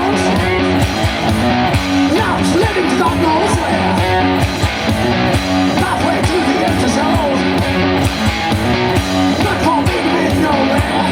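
Rock music with guitar and a steady beat, likely live, with some singing.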